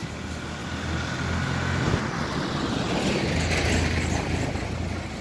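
A motor vehicle drives past on the road, its engine hum growing louder, peaking in the middle, then fading away as its pitch drops.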